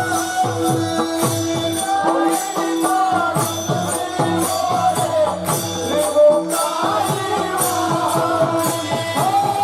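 Marathi devotional kirtan music: a mridang, a two-headed barrel drum, plays a steady rhythmic pattern, its deep bass strokes dropping in pitch, over a sustained drone and a flowing melody, with bright jingling percussion on top.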